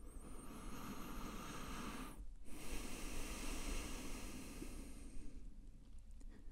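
A person breathing audibly through the nose: one breath of about two seconds, a brief pause, then a longer breath of about three seconds.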